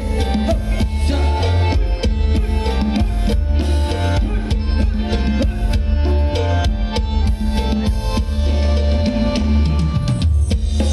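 Live band playing Thai ramwong dance music: a steady drum-kit beat with heavy bass under pitched melody instruments.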